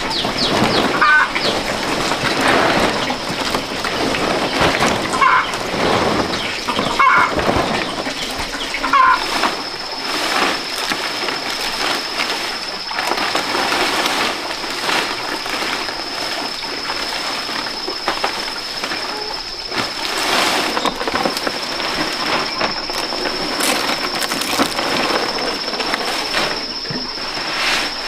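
Fan-palm leaves rustling and crackling as they are handled and laid as roof thatch, with a few short bird chirps in the first nine seconds and a steady high-pitched whine from about nine seconds on.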